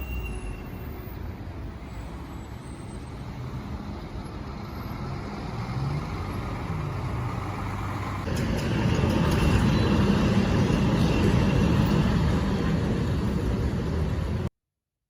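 Steady vehicle noise, a low rumble with hiss, growing louder about eight seconds in and then cutting off abruptly near the end.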